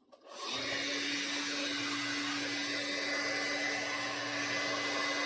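A hair dryer switched on about a third of a second in, then blowing steadily with a constant hum. It is heating the adhesive to melt the phone's panel back in place.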